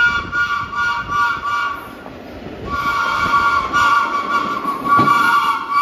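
Horn of a vintage R1-9 New York City subway train sounding a salute, several notes at once, as the train runs through the station. It gives quick repeated toots for about two seconds, pauses briefly, then sounds in longer blasts, over the rumble of the train on the rails.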